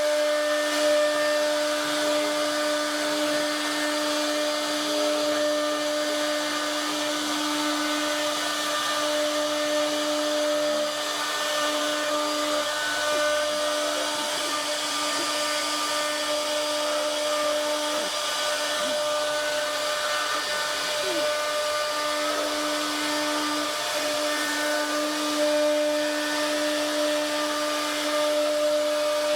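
CNC router spindle running steadily while the bit cuts wood: a constant whine over an even hiss.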